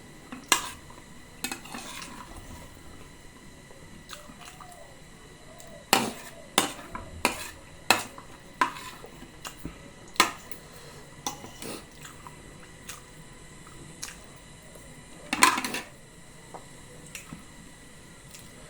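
Cutlery clinking and scraping against a bowl while eating, in scattered sharp clinks, with a busier run of them from about six to ten seconds in and a louder clatter at about fifteen seconds.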